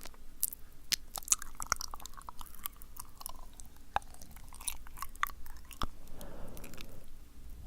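Close-miked wet mouth sounds: a man's tongue clicks and lip smacks, sticky and irregular, with a soft breath near the end.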